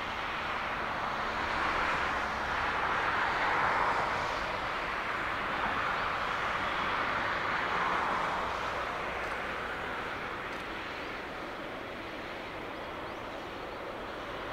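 Boeing 777-300ER's GE90 turbofan engines running at taxi power: a steady jet roar that swells twice and then eases a little.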